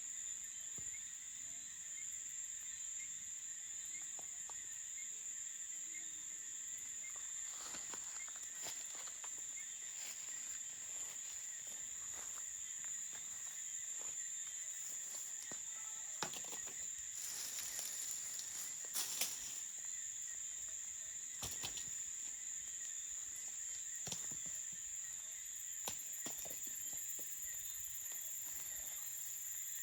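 Crickets chirring in one steady high-pitched trill, with scattered sharp crackles and pops from a wood campfire, bunched a little past the middle.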